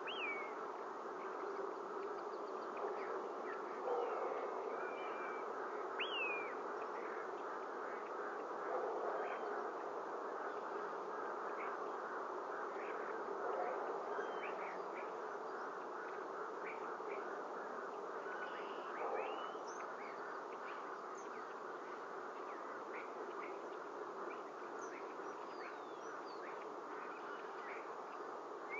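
A steady buzzing hiss runs throughout, with several short, high, falling bird chirps scattered through it.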